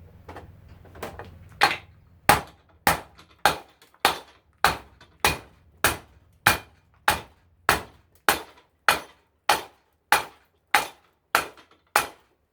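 Steady hammering on a garbage disposal unit, about eighteen sharp blows at a bit under two a second, with a few lighter taps first, driving a part of the disposal loose.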